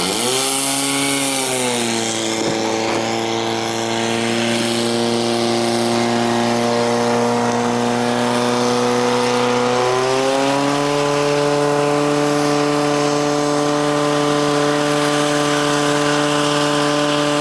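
Portable fire pump's engine running flat out, a loud steady high-revving drone while it pumps water through the hose lines to the nozzles. The pitch rises sharply at the start, settles slightly lower about two seconds in, then steps up again about ten seconds in and holds.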